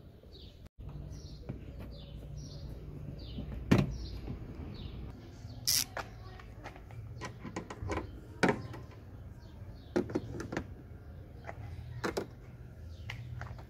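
Hands working on a car's headlight unit and plastic engine-bay trim: scattered sharp clicks and knocks, the loudest about four and eight and a half seconds in, over a steady low hum.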